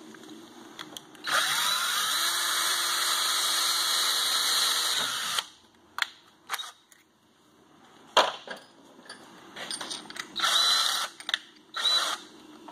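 Cordless drill boring a pilot hole through a snowmobile skid rail. It spins up and runs steadily under load for about four seconds, then stops. A few knocks follow, and the drill runs again in a shorter burst near the end.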